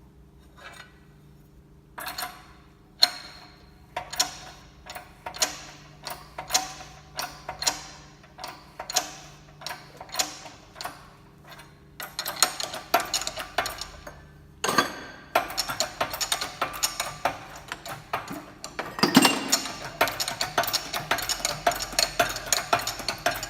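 Pressing a new wheel hub bearing into its hub: sharp metal-on-metal strikes on the driver, roughly two a second, then from about halfway a fast run of ratchet-like clicking as the tool is worked.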